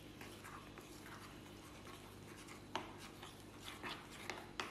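Steel spoon stirring a wet spice paste with sesame seeds in a glass bowl: soft scraping, with a few light clinks of the spoon on the glass in the second half.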